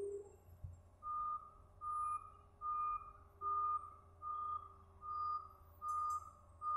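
A heavy-machinery backup alarm beeping on one steady pitch, a bit more than once a second, starting about a second in, over the low steady running of diesel excavator engines.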